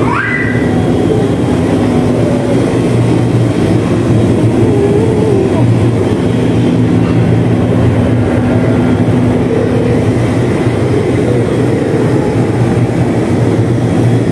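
A steady low rumble with a hum, and a short rising tone right at the start.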